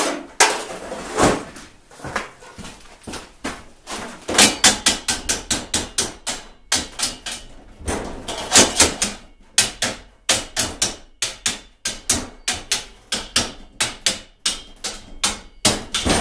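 Hammer blows on metal while a bicycle crankset is being knocked off. A few scattered knocks come first, then from about four seconds in a quick run of sharp strikes at about four a second, with short pauses between runs.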